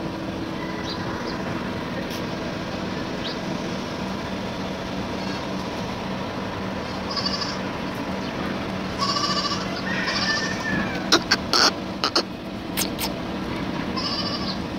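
Several short bleating animal calls over a steady droning hum, with a quick run of sharp clicks or knocks about eleven to thirteen seconds in.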